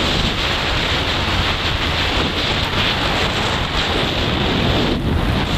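Steady rush of wind buffeting the microphone on a motorcycle moving at road speed, with the ride's low drone underneath.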